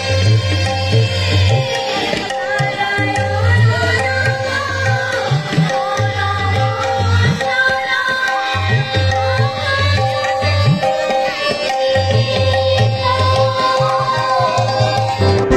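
Live music: a hand drum plays a repeating low pattern under singing, over steady held notes.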